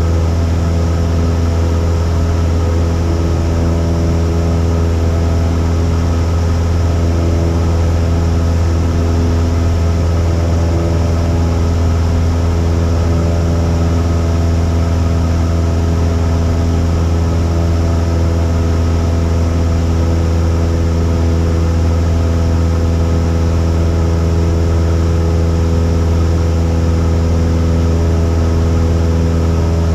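Cessna 172's piston engine and propeller droning steadily in flight, heard inside the cabin: a loud, even drone with no change in pitch.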